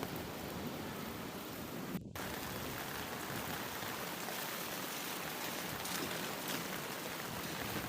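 Steady rain falling, an even hiss with no pauses, broken by a split-second gap about two seconds in.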